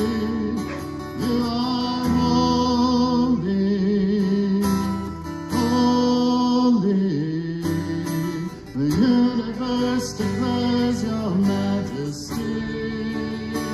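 Worship song: a man sings into a microphone while strumming an acoustic guitar, with other voices singing along.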